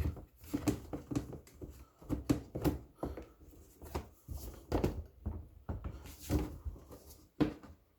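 Plastic housing parts of a coffee maker being handled and fitted together: irregular clicks, taps and knocks.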